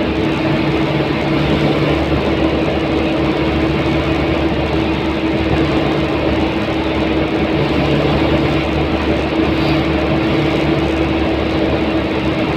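Vehicle cabin noise at cruising speed on an expressway: engine drone and tyre rumble on the road surface, with a steady humming tone over the noise.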